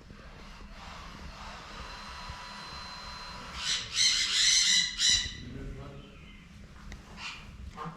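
Bird calling: a loud burst of rapidly repeated calls about halfway through, with a fainter call near the end.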